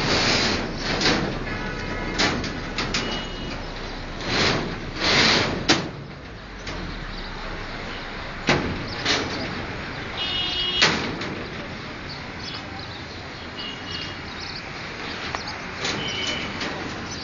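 Construction site noise: repeated scraping and knocking with a few brief high squeals, over a low rumble that drops away after about seven seconds.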